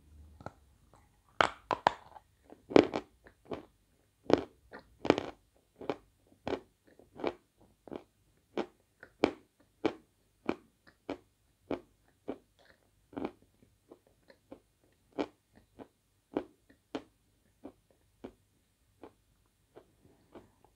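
A mouthful of dry Svetogorye chalk being bitten and chewed, with sharp crunches about every two-thirds of a second. The crunches are loudest in the first few seconds and grow fainter as the chalk is ground down.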